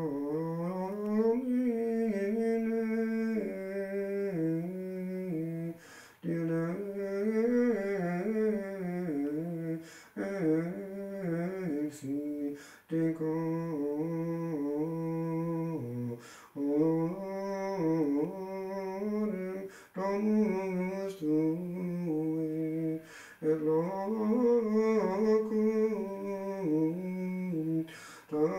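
A solo male voice singing Gregorian chant unaccompanied, in melodic phrases of three to four seconds with short pauses for breath between them.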